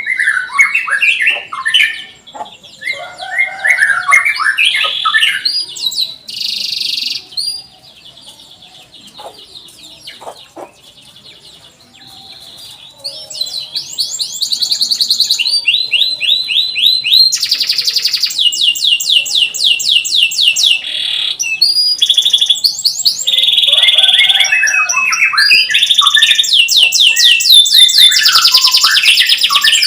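Domestic canary singing a long song of chirps and rapid trills. It is softer for a few seconds about a quarter of the way in, then goes into continuous fast trills through the second half.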